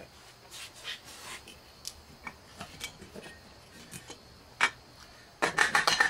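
Hands handling a wood block and metal strip on a cast-iron vise: scattered light knocks and clicks, with one sharper knock and then a quick run of louder taps near the end.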